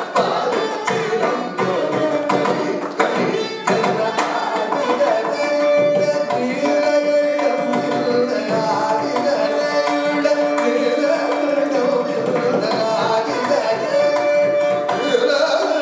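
Carnatic classical singing in raga Purvikalyani: a male voice with mridangam accompaniment. Dense drum strokes for the first four seconds, then long held sung notes over lighter drumming.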